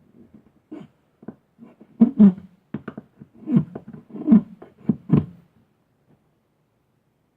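Knife carving a notch into a Western red cedar hearthboard: a run of short, uneven cutting scrapes and knocks, heaviest about two seconds in and again from three and a half to five seconds in, then stopping.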